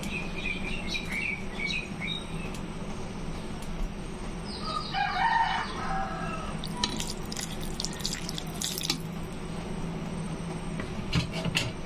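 A rooster crows once about halfway in, a call of about two seconds, over a steady low hum. Short high chirps come in the first two seconds and a few sharp clicks follow the crow.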